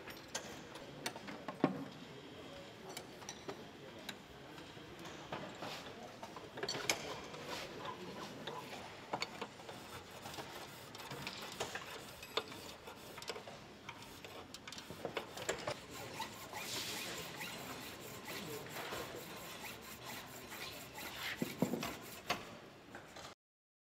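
Hand files rasping on metal workpieces in a busy workshop, stroke after stroke, with scattered clicks and clanks of tools on benches; it cuts off suddenly near the end.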